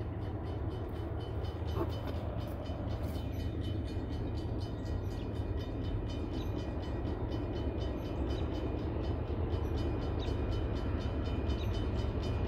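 Freight train of auto-rack cars rolling past on the nearest track: a steady low rumble of steel wheels on rail, with a fine, rapid clicking.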